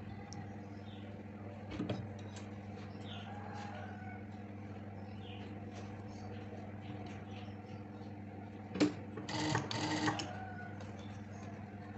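Industrial lockstitch sewing machine's motor humming steadily at idle while fabric is handled, with brief fabric rustles about two seconds in and a louder spell of rustling and handling around nine to ten seconds.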